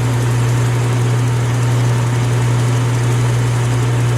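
Rockwell 11-inch variable-speed geared-head lathe running with no cut, a steady low hum.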